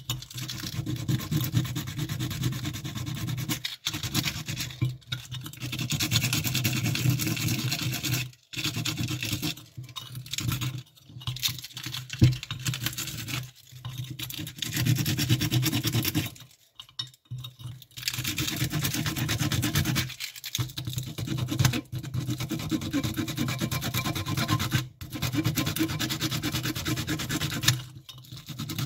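A small metal part scrubbed with a kitchen sponge: a rasping rub made of quick back-and-forth strokes, in runs broken every few seconds by short pauses.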